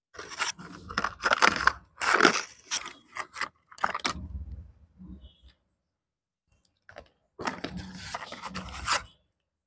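Slate pencil being bitten and chewed with a dry, gritty crunch close to the microphone, mixed with the cardboard pencil box being handled and scraped. Two stretches of crunching and scraping, with a pause of about two seconds between them.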